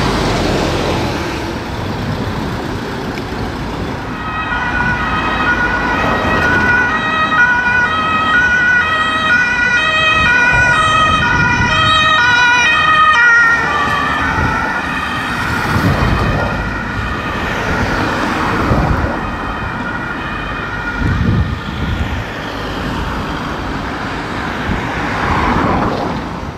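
Ambulance two-tone siren sounding in alternating high and low notes over engine and traffic noise. The siren is clearest for about ten seconds, from a few seconds in, then drops back under the road noise.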